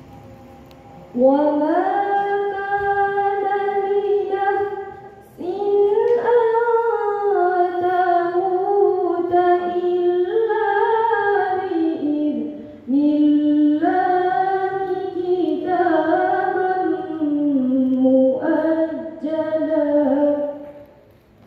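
A girl reciting the Qur'an in tilawah style, chanting melodically in long, slowly gliding phrases with short pauses for breath.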